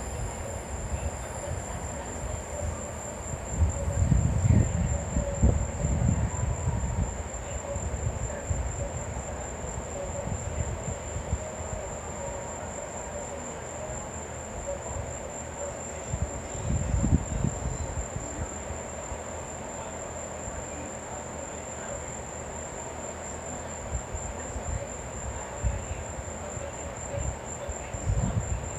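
Thunder rumbling low twice, about four seconds in for a few seconds and again briefly around seventeen seconds, over a steady high insect chirring.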